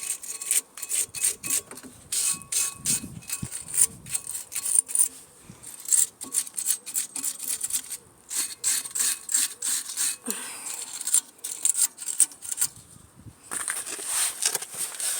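Stiff brush scrubbing road grime off a car's front brake caliper bracket in quick, uneven back-and-forth strokes, with a steady hiss near the end.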